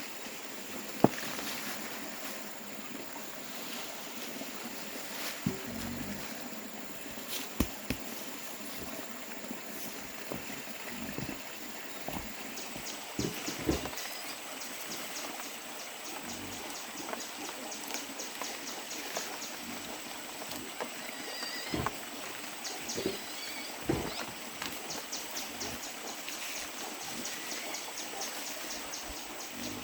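Outdoor ambience: a steady rush of running water under a high, steady insect drone that breaks into spells of fast, even ticking. Scattered sharp knocks, the loudest about a second in and again at about seven seconds.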